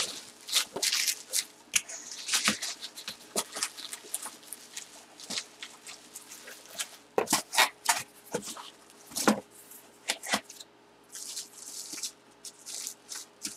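Hands handling a cardboard box and plastic packaging: a run of short, irregular rustles, scrapes and crinkles as it is opened and unpacked.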